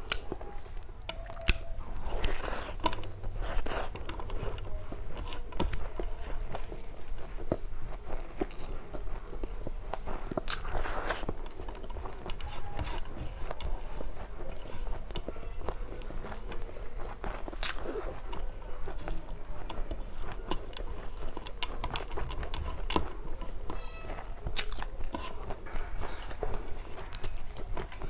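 A person chewing and biting food, with crunches and scrapes.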